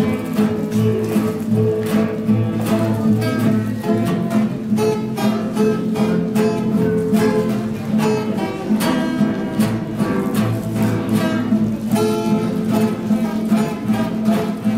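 A trio of acoustic guitars, one of them a nylon-string classical guitar, playing a piece together with a steady run of strummed and plucked chords.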